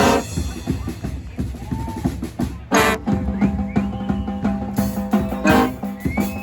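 Brass band playing, with drums (bass drum and snare) carrying the first few seconds and crashes near the start. The horns come back in on held notes with another crash about three seconds in, and there is a third crash near the end.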